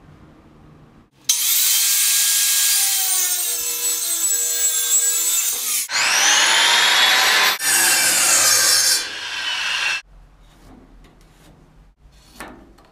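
Handheld power tool cutting into a wooden frame piece to take off material and level it. It runs in three passes, starting about a second in and stopping about ten seconds in, and its whine sags and recovers in pitch as it bites into the wood.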